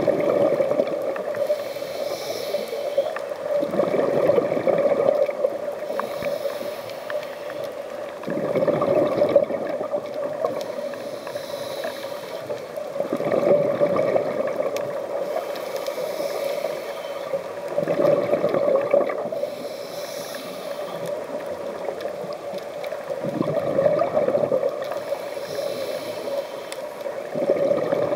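Scuba diver breathing through a regulator: a hissing inhale, then a louder rush of exhaled bubbles, repeating about every four to five seconds, six breaths in all, over a steady hum.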